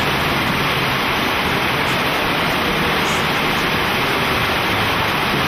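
Shallow river rushing over gravel and stones in riffles: a loud, steady rush of water.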